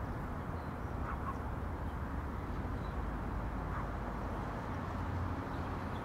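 Steady outdoor ambience of wind and distant road traffic, a continuous low rumble and hiss, with a couple of brief, faint bird calls about a second in and again near the middle.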